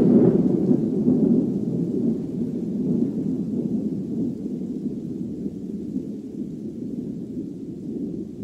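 Rolling thunder, a low rumble that is loudest at the start and slowly dies away.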